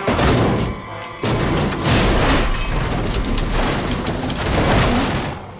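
Film sound effects of a stock car crashing and tumbling end over end across a grass infield: a run of heavy crashing impacts and scraping, with a brief lull about a second in, over music.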